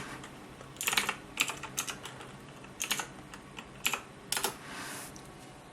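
A desktop PC running with a steady low hum, while about half a dozen sharp clicks and clatters come at irregular intervals, like keys being pressed or something hard being handled.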